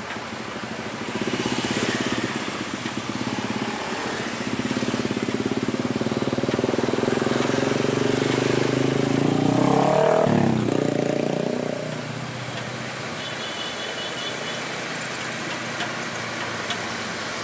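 Motor vehicle engines running on the road, with a motorcycle passing close by about ten seconds in, its engine note swooping as it goes past; the engine sound drops away soon after.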